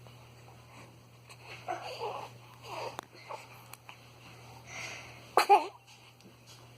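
Soft breathy snuffling, then a sudden sharp sneeze about five and a half seconds in.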